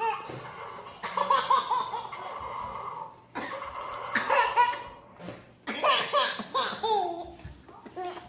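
A baby laughing in several high-pitched bursts, with short breaks between them.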